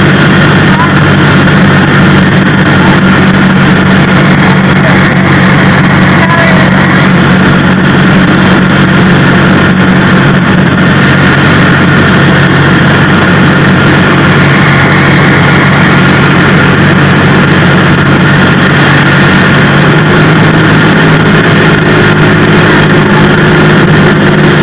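Cessna 172R's four-cylinder Lycoming engine and propeller droning steadily in flight, heard loud from inside the cabin.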